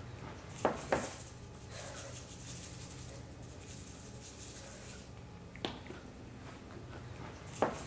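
Spice containers handled on a stone countertop: a few sharp knocks as they are picked up and set down, with a soft high hiss of seasoning being shaken out early on.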